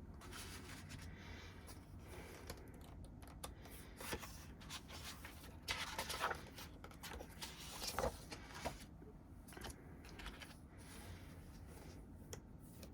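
Paper and cardboard album contents being handled: soft rustling and small clicks and taps, with louder rustles about six and eight seconds in.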